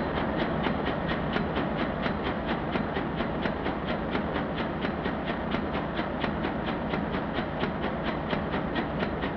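Large slow-speed diesel engine with hydraulically operated valves running: a steady mechanical din with an even clatter of about five beats a second.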